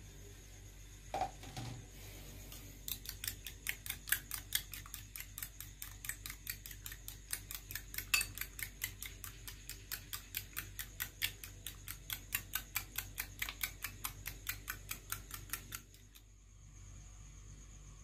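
A metal spoon beating eggs in a glass bowl, clinking against the glass in a fast, even rhythm of about five strokes a second. It stops suddenly near the end.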